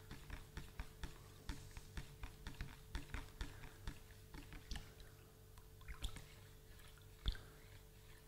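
A spoon stirring molasses into water in a plastic measuring jug, ticking against the jug's sides about three times a second, then slowing after about five seconds, with one louder knock near the end.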